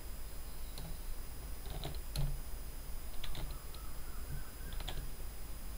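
Slow, irregular keystrokes on a computer keyboard: a handful of separate key presses spread across the few seconds.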